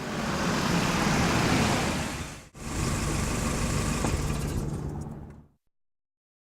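Motor vehicle engine running, in two stretches with a brief cut about two and a half seconds in, then fading out about five and a half seconds in.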